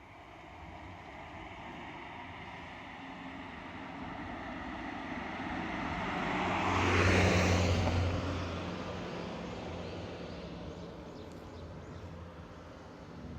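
A motor vehicle passing by: engine hum and rushing noise build up slowly, peak about halfway through, then fade away.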